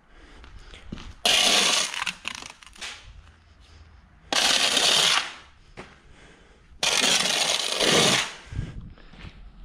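Soil being shovelled by hand: three loud gritty scrapes, each about a second long, as scoops of earth are dug and thrown, with lighter scraping between them.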